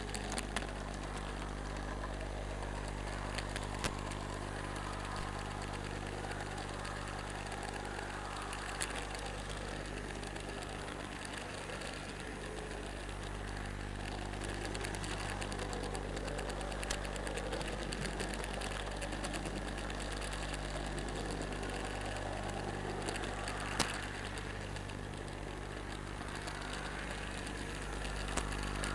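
N scale model train running along its track, heard as a steady electric buzz and hum that holds one pitch, with a few faint sharp clicks at irregular moments.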